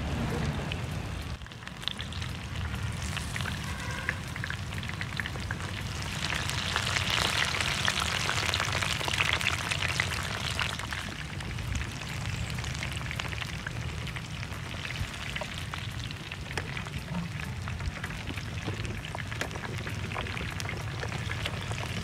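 Marinated quail pieces shallow-frying in hot oil in a pan, a dense crackling sizzle that grows louder about a third of the way in.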